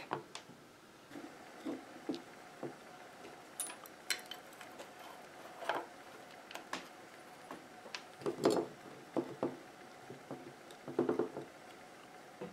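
Faint, scattered clicks and light knocks of small items handled on a tabletop, with a couple of louder clatters in the second half.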